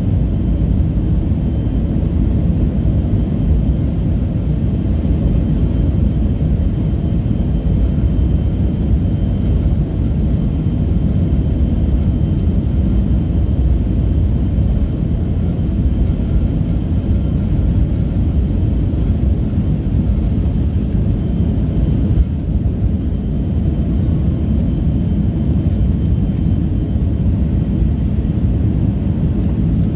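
Cabin noise of a Boeing 737-500 taking off: its CFM56-3 turbofans run at takeoff power with a steady low rumble and a faint high whine above it, as the jet rolls down the runway and lifts off.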